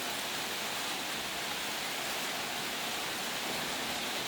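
Steady, even hiss with no distinct tones or strikes.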